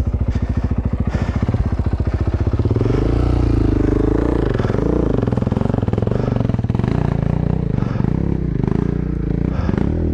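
Motorcycle engine idling with an even thump, then from about three seconds in an off-road motorcycle revving up and down under load as it is ridden up a steep, rocky dirt climb.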